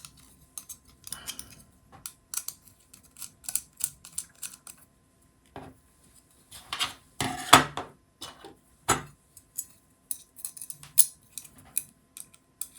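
Small standoffs being handled and fitted into the holes of a robot chassis plate: irregular light clicks and taps of small parts, with a cluster of louder clatters about seven to nine seconds in.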